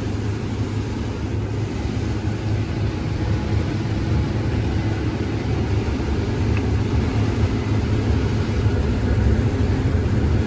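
Combine harvester running steadily while harvesting corn: a constant low engine drone with machinery noise over it.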